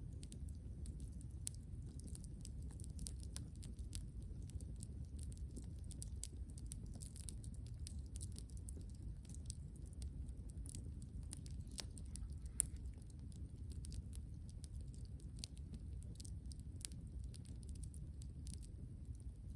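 Wood campfire crackling, with irregular small pops and one sharper pop about halfway through, over a low steady rumble.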